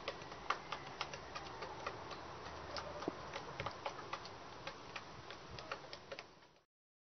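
Chickens pecking at feed in a wooden box: irregular sharp taps, several a second, over a faint hiss, fading out and stopping near the end.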